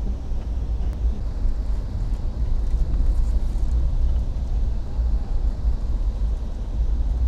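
Steady low rumble of a moving passenger train, heard from inside the car.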